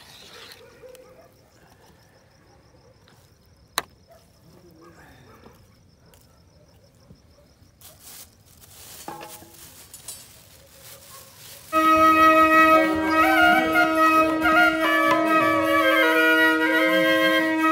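Faint background sounds with a single sharp click about four seconds in, then about twelve seconds in, flute music starts suddenly and loudly, a melody played over a steady held note.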